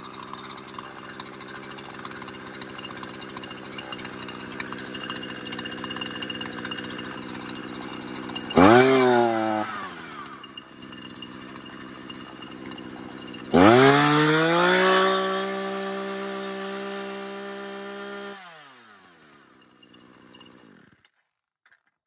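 Husqvarna 240 two-stroke chainsaw running after a fuel-system and carburettor rebuild: it idles steadily, is blipped once about eight seconds in and drops back to idle, then is revved up and held for about five seconds. The engine then winds down and stops near the end.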